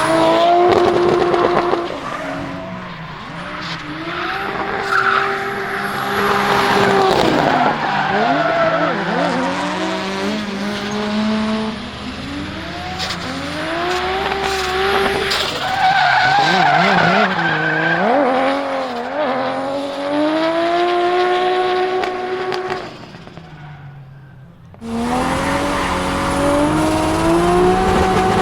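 Turbocharged RB25DET straight-six in a Nissan 200SX S14, heard from inside the car, revving up and down hard through a drift with tyres squealing. Near the end the engine briefly drops away, then picks up again.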